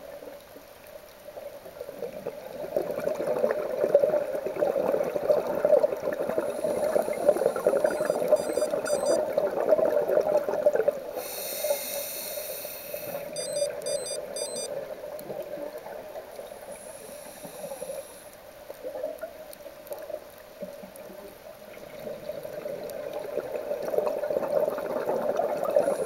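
Scuba regulator breathing underwater: exhaled bubbles gurgling and trickling in long stretches, loudest through the first half and again near the end, with a brief higher hiss about halfway through.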